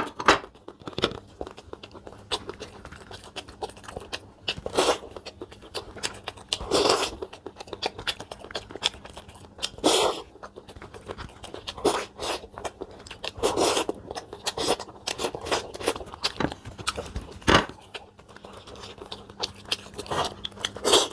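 Close-up eating sounds: bites into boiled corn on the cob, then chewing with wet mouth clicks and lip smacks, in irregular crunches and short bursts.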